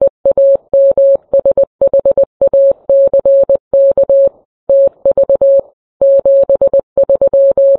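Morse code sent as CW: a single steady mid-pitched beep keyed on and off in dots and dashes, with a faint click at each key-down and key-up.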